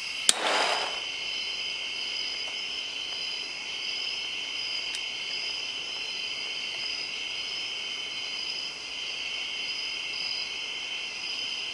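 Night insects chirring steadily in two high, unbroken bands. A single sharp click comes about a third of a second in, followed by a short rush of noise.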